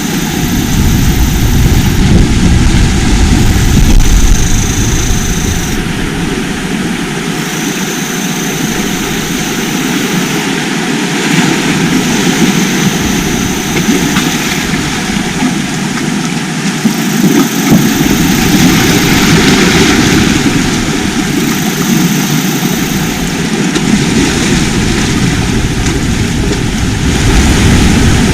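Sea surf: waves breaking and washing in a steady loud rush that swells and eases every several seconds.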